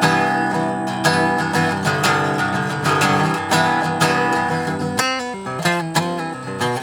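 Guitar strummed in full chords, switching about five seconds in to single picked notes.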